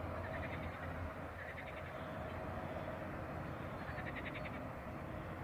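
Short, rapid trilling animal calls, repeated every second or two over a steady outdoor background.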